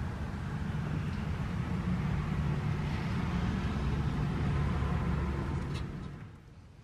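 Steady low rumble of a running motor vehicle, fading out near the end.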